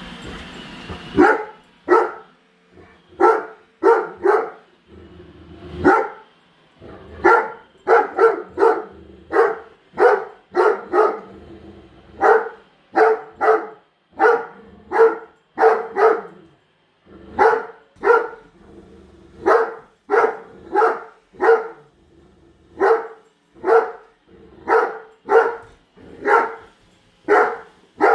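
Great Dane barking over and over at a Roomba robot vacuum, single loud barks at about one or two a second that start about a second in.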